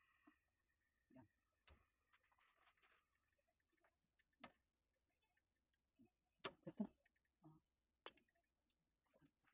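Mostly near silence, broken by scattered faint clicks and light knocks: the small steel flan mold and its wire handle clinking against the gas burner's grate while sugar melts into caramel. The loudest cluster of knocks comes about six and a half seconds in.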